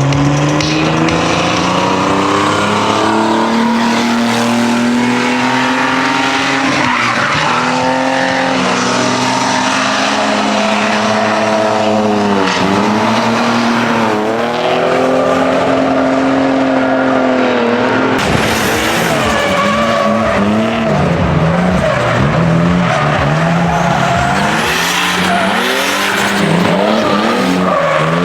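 Drift car engine held at high revs, its pitch dipping and climbing again and again, with tyres squealing as the car slides. About eighteen seconds in the sound changes to a choppier, faster-wavering engine note, still with tyre noise.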